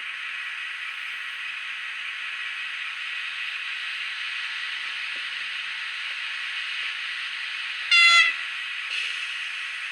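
The tiny speaker of an N gauge class 247 diesel locomotive model's DCC sound decoder playing a steady, thin, hissy engine running sound, with one short horn blast about eight seconds in.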